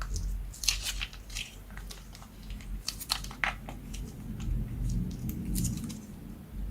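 Slime being worked by hand, with irregular sticky crackles and squishes, most of them in the first half.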